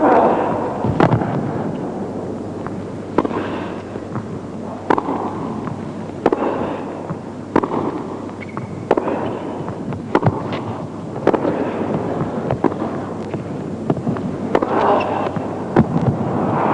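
Tennis ball struck back and forth in a long rally: sharp pops of racket strings hitting the ball, each followed by the ball bouncing on the court, about one a second over a low murmur from an indoor arena crowd.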